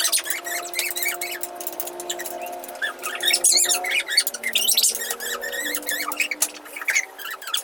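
Background music of held notes that change pitch every second or two, with many quick, high squeaky chirps over it.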